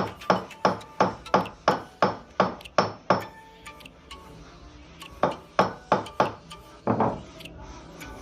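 Hammer blows, struck steadily about three times a second: a run of nine, a pause of about two seconds, then four more and a heavier final blow. Some of the strikes leave a short metallic ring.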